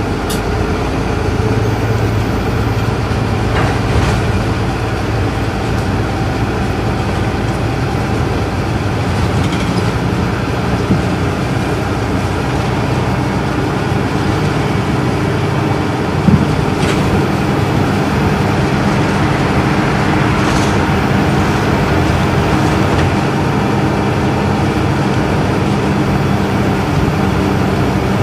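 Isuzu Erga Mio bus's inline-six diesel engine running under way, heard from inside the cabin together with steady road and tyre noise. A single sharp click comes a little past halfway.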